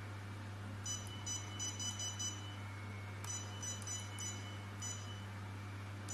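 Touchscreen of an SHR/E-light hair removal machine giving short electronic beeps, one per button press, in two quick runs of several beeps a second as its arrow buttons are tapped to change settings. A steady low hum runs underneath.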